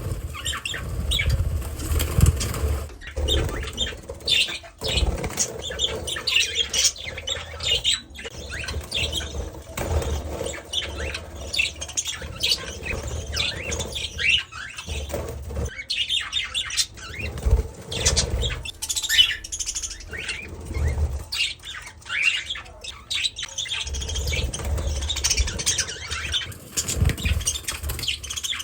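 Budgerigar chirping throughout, with wing flapping at times.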